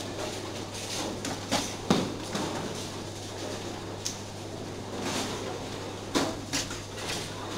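Bowling-alley noise: several sharp knocks and clatters of balls and pins on the lanes, over a steady low hum.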